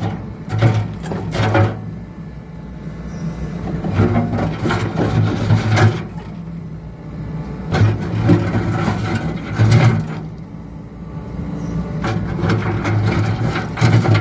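Hyundai HX65AMT+ mini excavator's diesel engine running, its low hum swelling repeatedly as the hydraulics take load, with occasional knocks from the working attachment.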